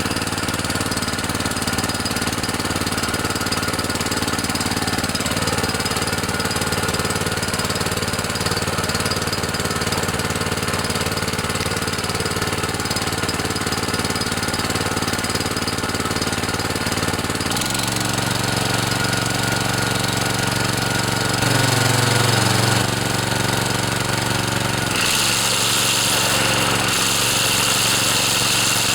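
Kawasaki engine of a DR walk-behind string trimmer running steadily while it warms up after starting. About two-thirds of the way through its note steps up and gets louder, and near the end a steady hiss joins it.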